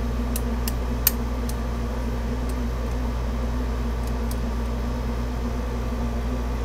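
A steady low hum, with several faint, sharp clicks of a short hook lock pick working the pins of a half-euro Baton cylinder lock, mostly in the first half and the sharpest about a second in.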